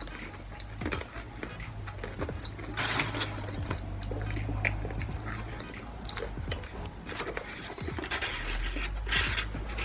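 Eating fried chicken: chewing and small mouth clicks, with short rustles of paper wrapping about three seconds in and again near the end, over a steady low hum.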